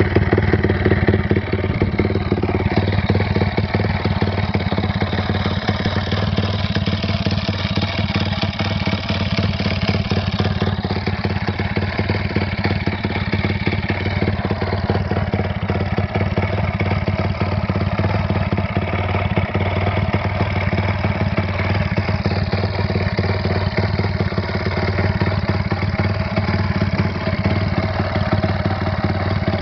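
Takegawa 138cc single-cylinder engine with a dry clutch, in a Honda Chaly, idling steadily through its new exhaust on its first test run.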